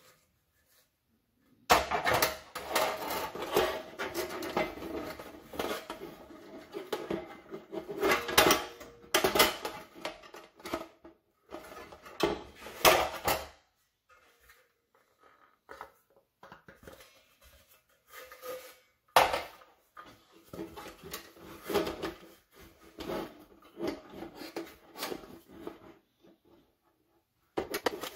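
Thin corrugated galvanized steel panels being handled and fitted together on a wooden workbench: irregular sheet-metal clatter, rattling and scraping, with several sharp metallic knocks. There is a quieter stretch in the middle.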